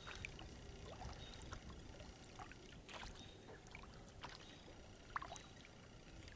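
Faint, irregular dips and drips of a kayak paddle in calm water. A few small sharper splashes stand out, the clearest about five seconds in.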